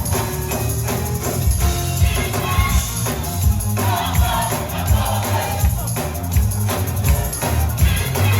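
Live gospel choir and band playing an up-tempo song, with tambourine and a driving bass and drum beat under the singing.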